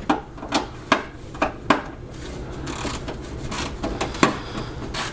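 Irregular sharp metallic knocks and clinks, about half a dozen, with a scraping rattle between them: tools and loose metal parts being handled under a car during heat-shield removal.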